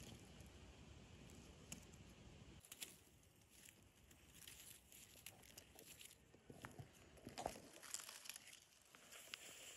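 Near silence with faint rustling and scattered small crackles and clicks, as from leaves, moss and stems being handled close to the microphone, a little busier near the end. A faint low rumble runs through the first three seconds or so.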